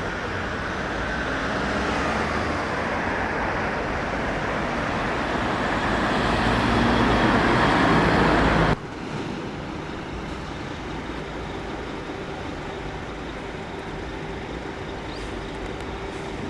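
A large road vehicle, most likely a fire engine, passes close by, its engine and tyre noise growing louder. About nine seconds in the sound cuts off suddenly to a quieter, steady traffic noise.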